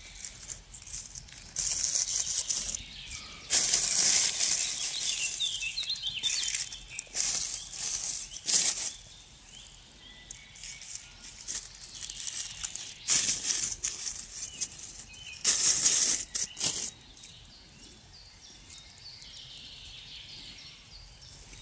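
Dry fallen leaves rustling and crackling in several bursts as a hand pushes through the leaf litter picking chanterelle mushrooms, with quieter stretches between.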